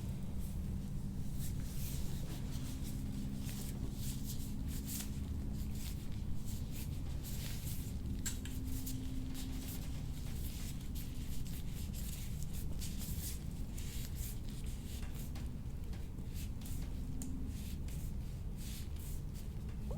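Hands rubbing and working over bare skin during a foot massage: a run of soft, scratchy brushing strokes over a steady low hum.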